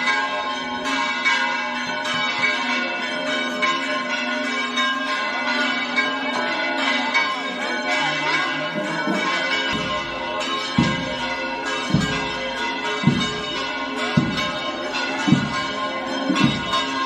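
Church bells ringing continuously, many overlapping tones. From about ten seconds in, a low thump sounds about once a second under the ringing.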